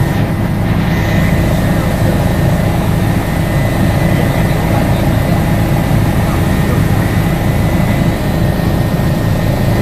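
Helicopter's rotor and engine running steadily in flight, heard from inside the cabin as a loud, even drone with a thin steady whine above it.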